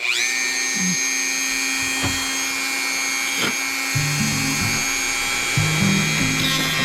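Dremel rotary tool switching on, its whine climbing quickly to full speed and then running at a steady high pitch. Background music with a low melody comes in about four seconds in.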